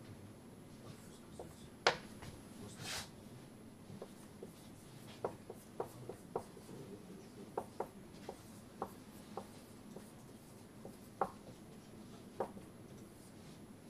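Writing on a board: scattered light taps and short scratching strokes, with a louder tap about two seconds in and a longer stroke just after.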